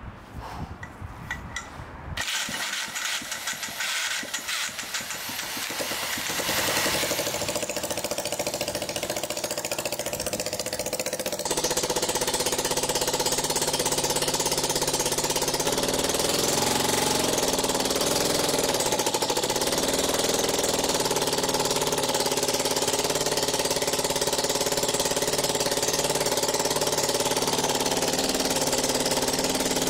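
Homemade single-cylinder rotary-valve engine starting up: uneven, sputtering firing that grows louder over the first several seconds. About twelve seconds in it settles into steady running.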